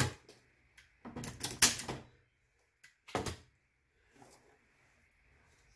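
Handling noises from hands-on work: a sharp knock at the start, a cluster of clattering knocks about one to two seconds in, another knock a little after three seconds, then faint fumbling.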